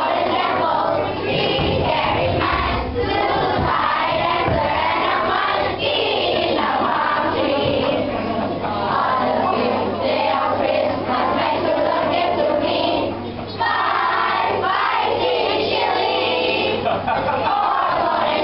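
A group of children singing a Christmas song together.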